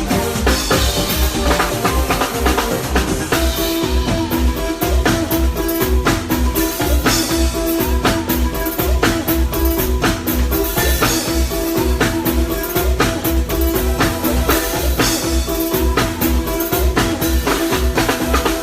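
Live band playing an instrumental passage: drum kit with a steady bass beat under held chords.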